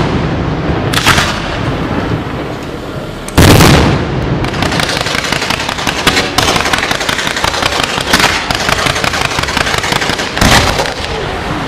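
Aerial fireworks display: shells bursting with a booming report every two seconds or so, the loudest about three and a half seconds in, over dense continuous crackling and popping.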